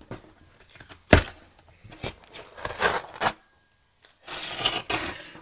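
Handling noise from unpacking a cardboard box of comic books: a sharp knock about a second in, a cluster of taps and clicks a second later, and about a second of rustling near the end.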